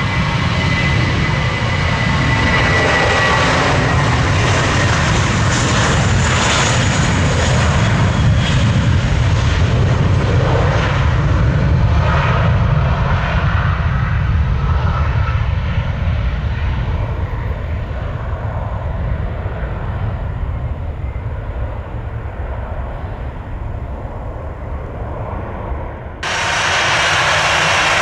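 Jet airliner passing under power, a deep rumble with a high whine in the first few seconds. The high end fades as it moves away. Near the end the sound cuts abruptly to another loud burst of jet noise.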